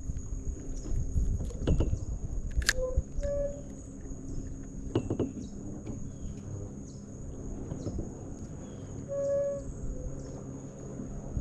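Steady high-pitched insect chorus, with two short low whistled calls, one about three seconds in and one about nine seconds in. A few sharp clicks and a low rumble of handling noise sit under it.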